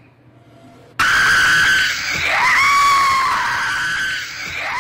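A sudden loud, high-pitched scream breaks in about a second in after a quiet start. It carries on with its pitch wavering, dipping sharply twice.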